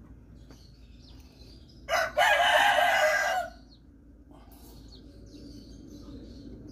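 A rooster crows once, about two seconds in, a call lasting about a second and a half.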